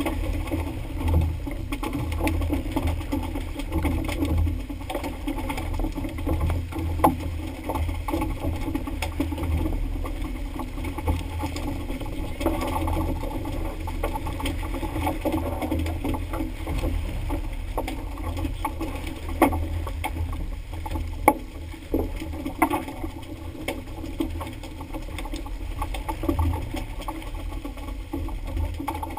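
Boat at sea with an engine running under a steady rumble of wind and water, and a few sharp knocks.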